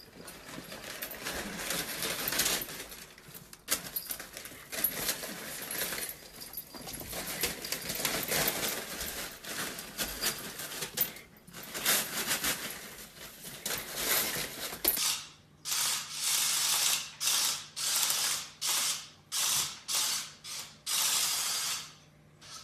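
Stiff brown wrapping paper crinkling and tearing as animals roll and scrabble in it, a dense crackle. For the last several seconds it turns into a run of separate rustling bursts, about one and a half a second, over a faint steady hum.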